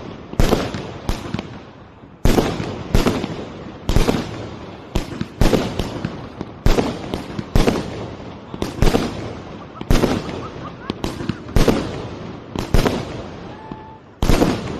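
A consumer fireworks cake (battery) fires shot after shot. It makes a steady run of sharp bangs about two a second, each one trailing off, with a short pause near the end before the bangs resume.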